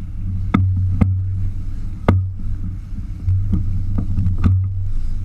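Low, steady rumble of a sportfishing boat's engine running, with about six sharp knocks scattered through, the loudest about two seconds in.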